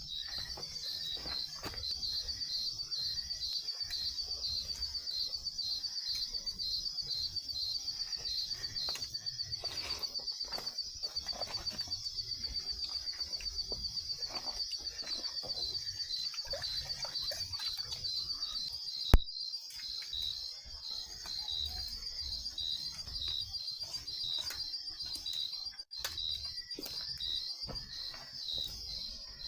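Night insects calling: a steady high trill with a pulsing chirp about twice a second, and one sharp click about 19 seconds in.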